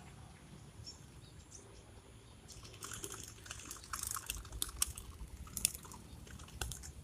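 A dense run of irregular sharp clicks and crackles starts about two and a half seconds in, with a few louder clicks near the middle.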